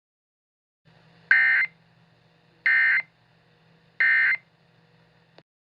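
Emergency Alert System end-of-message signal: three short, identical bursts of warbling SAME digital data tones around 2 kHz, the 'NNNN' code that closes an alert, sent a little over a second apart. A faint low hum runs beneath them.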